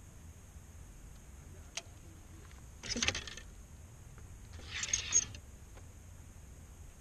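Fishing reel cranked in two short spurts, about three and five seconds in, after a single faint click.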